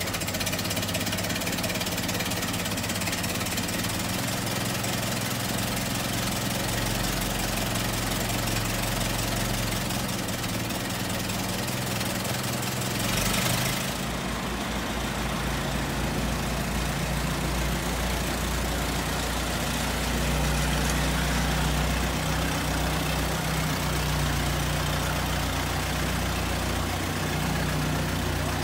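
1923 Ford Model T's four-cylinder side-valve engine idling steadily, with a short change in the sound about halfway through.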